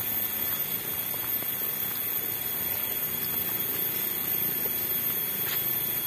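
Steady outdoor hiss among dense tropical vegetation, with a constant thin, high-pitched drone of insects layered over it.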